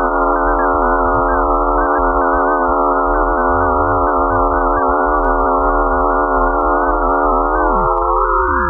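Sonified space data: a dense cluster of synthesized tones held together as one steady, slightly wavering chord. Near the end a few of the lower tones slide down while others glide upward.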